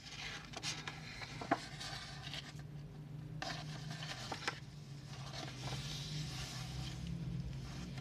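Paper pages of a dot-grid notebook being turned and smoothed flat by hand: rustling and rubbing of paper in two long stretches, with one sharp click about one and a half seconds in.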